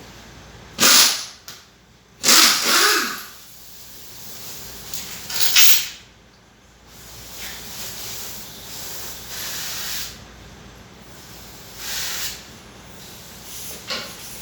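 A power tool run in several short bursts, each under a second, with a hissing edge, while engine parts are being taken off.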